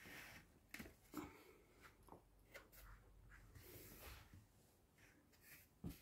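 Near silence: faint scattered clicks and short rustles, the loudest just before the end.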